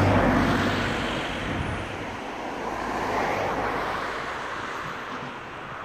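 A motor vehicle's engine running with a low hum, loudest at the start and fading, over steady wind noise.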